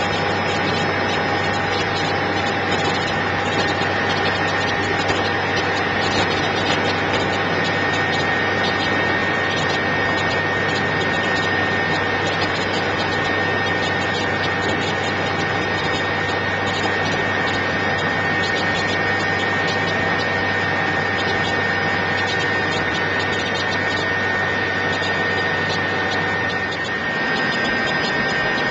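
Helicopter turbine engine and rotor running steadily, a constant high whine over dense noise and a low drone. Near the end the low drone drops away while the whine carries on.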